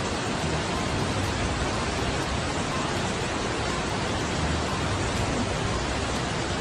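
Steady, even rushing hiss of heavy rain and floodwater pouring down a street.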